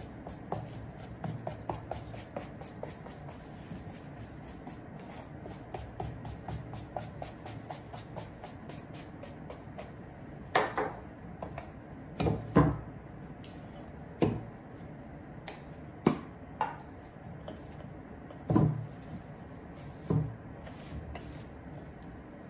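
Quick, short scratchy strokes of a small hand brush worked along a suede shoe's sole edge. About halfway through these give way to several louder, separate knocks and thumps.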